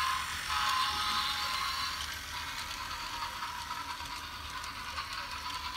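Motorized Imaginarium Express toy locomotive running along plastic track: a steady whir of its small motor and gearbox.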